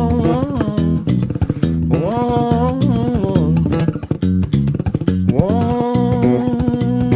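Ken Smith four-string electric bass played solo: a plucked bass line with higher melody notes that slide up in pitch, about two and five seconds in, and then hold.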